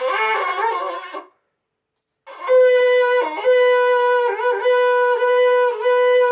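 Conch shell (shankh) being blown: a short wavering first note, a pause of about a second, then a long steady horn-like note with strong overtones that dips in pitch briefly a few times. The note is made by the player's lip vibrations resonating in the air inside the shell.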